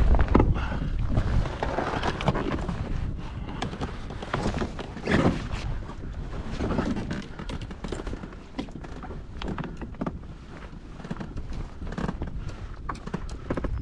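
Wind buffeting the microphone, with scattered knocks and clatter throughout.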